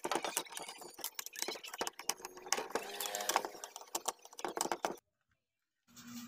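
Screwdriver working the screws out of a loudspeaker driver's frame in a plastic speaker case: a run of irregular clicks, taps and scrapes of metal on metal and plastic. It cuts off abruptly about five seconds in, and a steady low hum starts just before the end.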